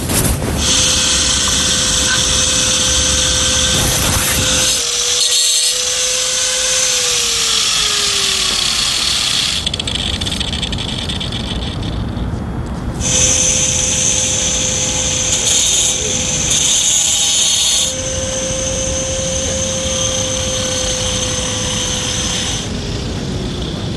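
A handheld power tool, of the kind used to cut paving stone, runs in two long spells with a break of a few seconds between them: a steady motor whine under a loud, high hiss. Each time the whine sags in pitch and winds down as the tool is switched off.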